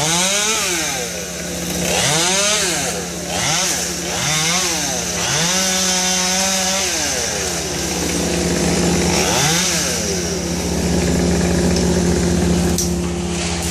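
Chainsaw engine revved in short bursts, its pitch rising and falling about six times, then running at a steady speed for the last few seconds.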